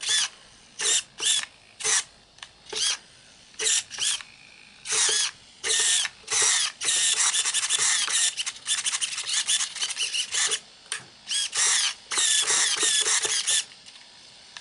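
Steering servo of a Tamiya Gravel Hound RC car whirring in short bursts as it swings the front wheels left and right. Each burst is a high whine that rises and falls in pitch. About halfway through the bursts come in quick succession, almost without a break, then stop.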